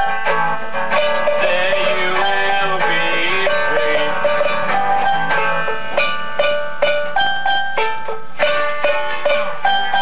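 Guitar played solo: quick single picked notes, with bent, wavering notes a couple of seconds in.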